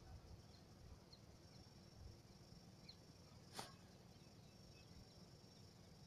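Near silence: faint lakeside ambience with a steady high insect drone, a low rumble and a few faint short chirps, broken by one brief sharp sound about three and a half seconds in.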